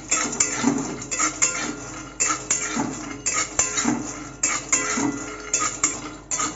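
Flat metal spatula scraping and stirring peanuts around a dry metal karai (wok), the nuts rattling against the pan in quick, irregular strokes of about three a second. The peanuts are being dry-roasted with no oil.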